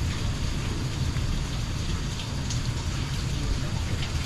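Steady rushing of fast-flowing, rain-swollen water, deep and even throughout.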